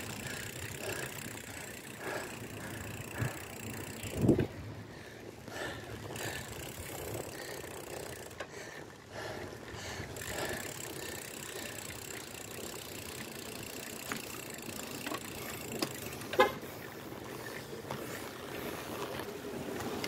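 Pinarello Dogma road bike rolling along a wet road: a steady hiss of tyre and wind noise. A short thump comes about four seconds in and another near the end.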